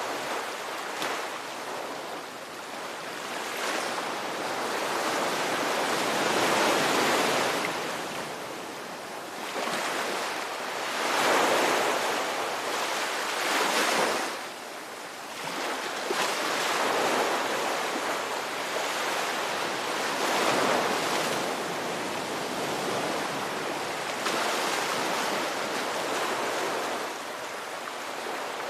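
Ocean surf: waves breaking and washing in, swelling and easing every few seconds, with the loudest surges about 11 and 14 seconds in.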